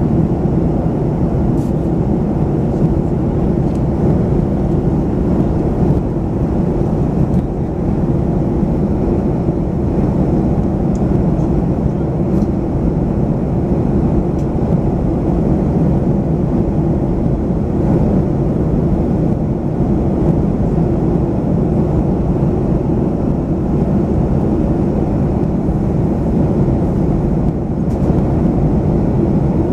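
Steady cabin drone of a Boeing 737-500 in flight, heard from inside the cabin beside the wing: the hum of its CFM56-3 turbofan engines blended with airflow noise, a dense low rumble that holds even throughout.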